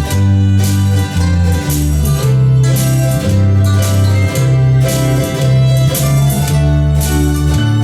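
Country gospel instrumental with a mandolin playing the melody over guitar and a walking bass line.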